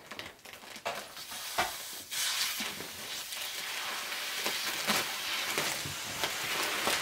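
Clear plastic wrapping on a vacuum-packed memory foam mattress crinkling and crackling as it is cut open with scissors. It starts as a few sharp crackles and becomes a steadier crackly hiss from about two seconds in.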